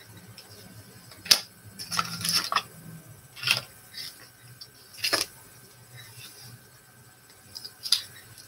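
Painting tools being handled: a few sharp clicks and taps, with a short clattering scrape about two seconds in, as brushes and paint are picked up and set down.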